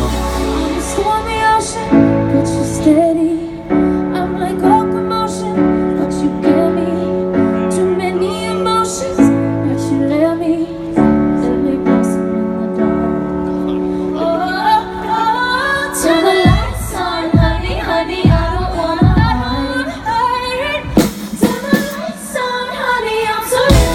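Live pop band with a female lead vocalist singing over sustained keyboard chords. About halfway through, the vocal line climbs higher and the music grows fuller, with drum hits.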